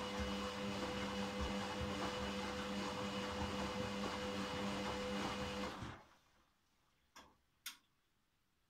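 Candy Grandó front-loading washing machine on a delicates wash, its drum motor running with a steady hum as it turns the laundry. The motor stops about six seconds in, and two short clicks follow.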